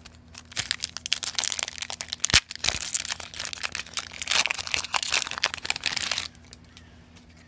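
Foil wrapper of a trading card booster pack crinkling and tearing as it is ripped open by hand, with one sharp crack about two and a half seconds in. The crinkling stops abruptly near the end.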